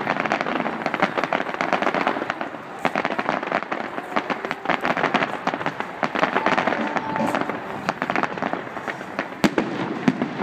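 Fireworks display: a dense, continuous crackling and popping of bursting shells, with one sharper bang about nine and a half seconds in.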